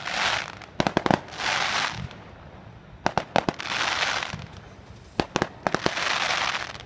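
Aerial fireworks bursting: three quick volleys of sharp bangs, about one, three and five seconds in. Each volley is followed by about a second of crackling hiss from the exploding shells.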